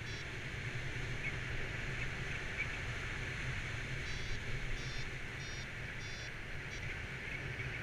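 Steady wind rush from airflow over the microphone in paraglider flight. About four seconds in, a paragliding variometer gives a short run of about five high beeps, its climb tone, which signals that the glider is rising in lift.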